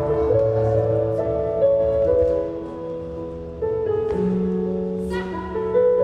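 Music for a Latin formation dance, played over hall loudspeakers: a slow melody of long held notes, with new loud chords coming in about three and a half seconds and six seconds in.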